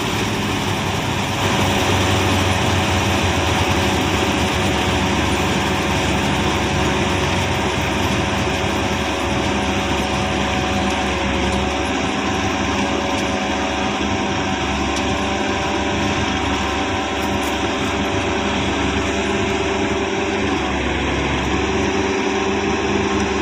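Combine harvester running steadily while threshing wheat: a loud, constant engine and machinery drone with a steady whine, as straw and chaff pour out the back.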